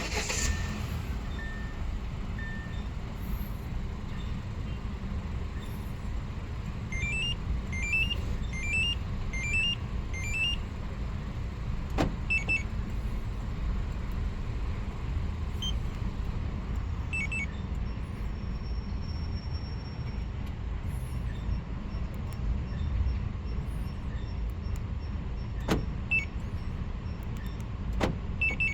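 Hyundai Accent with a Magicar Gold8 remote-start alarm being put through its functions: a steady low engine rumble underneath, a run of five short rising electronic chirps about a third of the way in, then scattered short double beeps, each with a sharp click of the locks.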